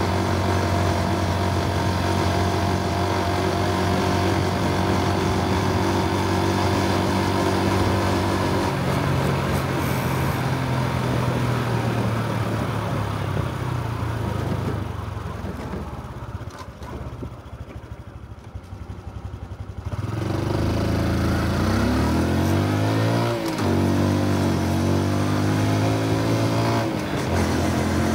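Honda Super Cub C125's single-cylinder four-stroke engine and exhaust under way. It runs steadily, drops in revs and goes quiet as the bike slows about halfway through, then pulls away with rising revs and a gear change before settling back to a steady cruise.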